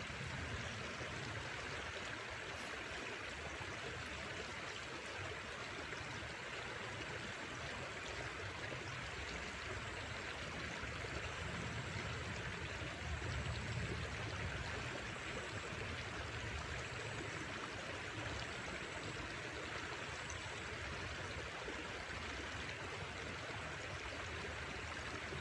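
Steady rush of a river running over rocks and boulders.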